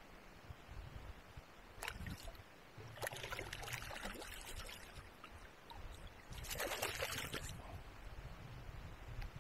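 Water splashing and trickling beside a kayak in three short spells: a brief one about two seconds in, a longer one around three to four and a half seconds, and another near seven seconds.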